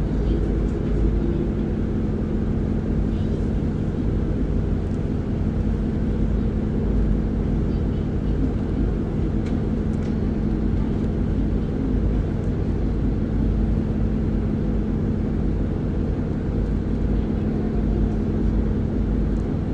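Isuzu Erga city bus's four-cylinder diesel engine running at a steady pitch, heard from inside the passenger cabin, with a few faint clicks.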